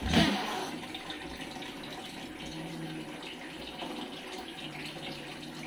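Two house cats squabbling over a fish: a short, loud hiss and scuffle right at the start as one swipes at the other, then a low growl that comes and goes twice in the second half.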